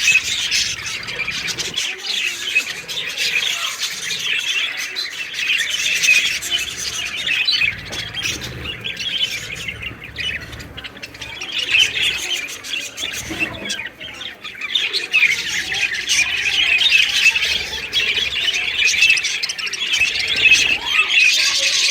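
Many small home-bred cage birds calling at once, a dense high chatter of overlapping chirps and squawks that thins out briefly twice midway.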